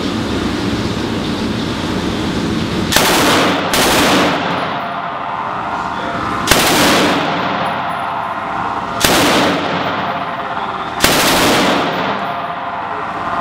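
M249 SAW belt-fed light machine gun firing 5.56 mm in short fully automatic bursts: five bursts of well under a second each, the first two back to back about three seconds in, then one every two seconds or so. Steady background noise continues between bursts.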